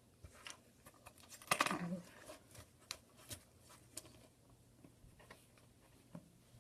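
Light, irregular clicks and taps of small repair tools handling an iPhone's parts, with a louder scraping rustle about a second and a half in.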